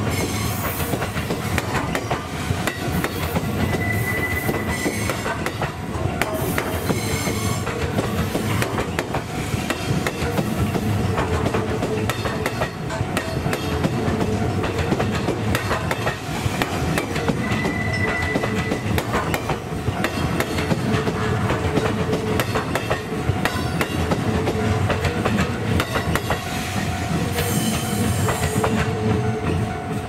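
Electric commuter train passing close by, its wheels clattering over the rail joints in a continuous run of clicks, with two brief high squeals from the wheels, about four seconds in and again about eighteen seconds in.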